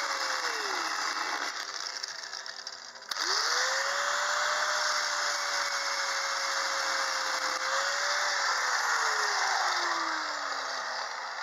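Angle grinder with a thin cutting disc cutting through the outer sheet-steel skin of a classic Mini's inner wing, a steady motor whine over the hiss of the cut. It winds down in the first second, starts up again suddenly about three seconds in and cuts steadily, then is switched off and spins down over the last few seconds.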